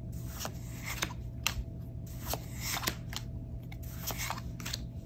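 Pokémon trading cards slid and flipped by hand: irregular soft swishes and light ticks as cards are pushed off the stack one after another.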